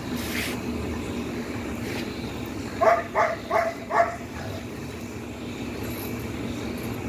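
A dog barks four or five times in quick succession about three seconds in, over a steady low hum.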